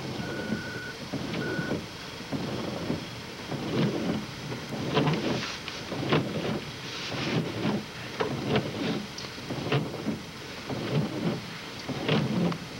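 Irregular rumbling gusts of wind buffeting the microphone, surging every second or so. Two short high beeps come near the start.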